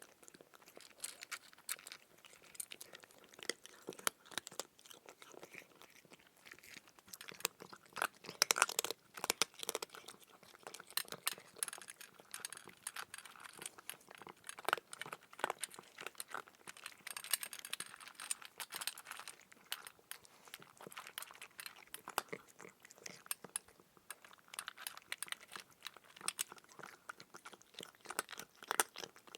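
A cat chewing food: a close, dense run of quick, irregular clicks, louder in spells.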